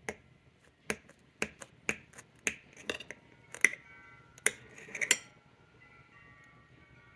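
Sharp clacks of kitchen utensils, about two a second for some five seconds, then they stop.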